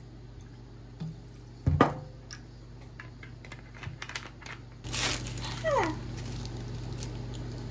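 Liquid poured from a plastic bottle into a paper cup, a sharp knock a little under two seconds in, then, from about five seconds in, the crinkling and rustling of a triangle kimbap's plastic wrapper being handled.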